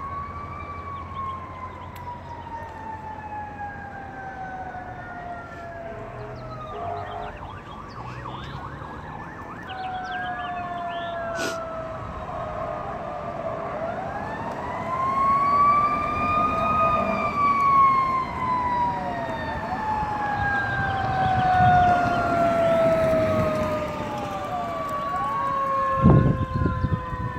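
Emergency-vehicle sirens, at least two at once, their pitch sweeping slowly up and down, growing louder past the middle as they come closer. A short thump near the end.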